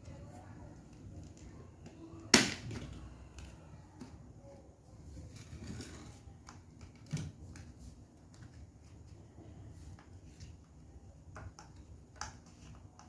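Sharp clicks and knocks from handling the parts of a homemade PCP air rifle: one loud knock a little over two seconds in, a smaller one about halfway through, and a few faint clicks near the end.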